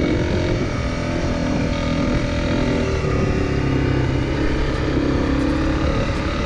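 Honda CRF250L Rally's single-cylinder four-stroke engine running under way, its note shifting up and down with the throttle.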